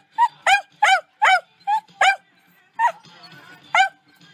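A dog barking close up: about eight short, high barks, coming quickly for the first two seconds and then more spaced out.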